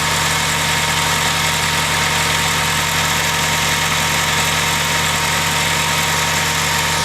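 Nissan 240SX engine idling steadily, an even hum with no change in pitch.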